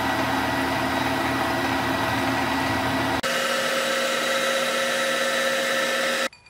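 Vertical milling machine running, its end mill cutting a shallow keyway slot into a steel steering shaft: a steady machine whine with several fixed tones. The pitch shifts abruptly about three seconds in, and the sound cuts off just before the end.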